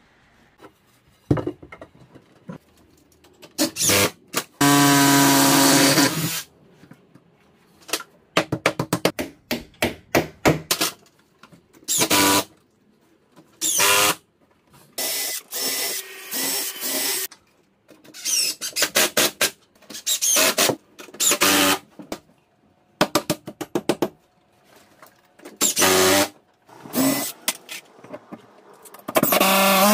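Cordless drill driving screws into timber battens in many short bursts, stopping and starting, with one longer run with a steady whine about five seconds in.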